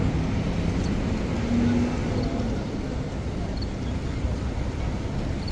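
City street traffic: a steady low rumble of vehicles running past, with faint general street bustle.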